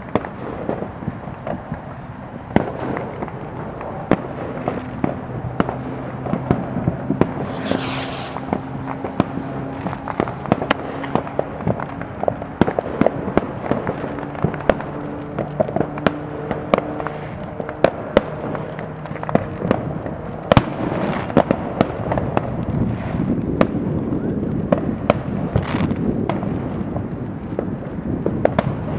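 Neighbourhood consumer fireworks and firecrackers going off all around, dozens of irregular bangs and pops near and far over a continuous crackle. A low droning tone runs under the bangs for several seconds in the middle.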